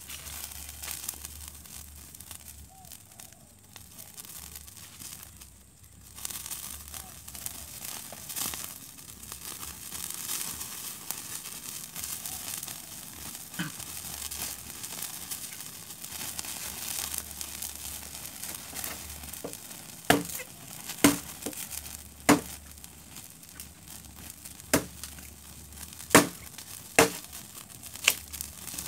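Small wood fire of split kindling and cardboard egg tray catching and burning, with a continuous crackling hiss. In the last third come sharp, loud pops from the burning wood, about one a second.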